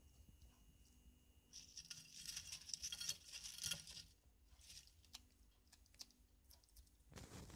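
Bearded dragon biting and tearing at crisp lettuce leaves: a run of crunching and leaf rustling lasting about two seconds, then a few scattered clicks and another short crunch near the end.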